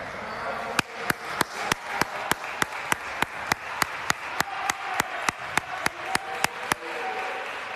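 Steady rhythmic hand clapping, about twenty sharp claps at roughly three a second, starting about a second in and stopping near the end, over the murmur of a gym.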